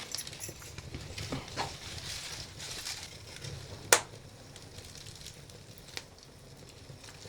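Dried banana leaves burning over a gas stove flame, crackling faintly and irregularly, with a sharp click about four seconds in.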